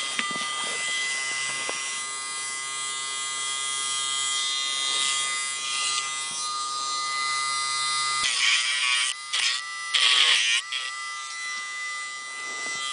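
Dremel rotary tool running with a steady high whine while grinding a dog's toenails. About eight and ten seconds in come two louder gritty grinding passes as the bit is pressed against a nail, the whine dipping in pitch under the load.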